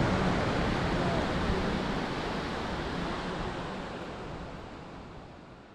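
Steady rushing noise that fades out gradually over the last few seconds.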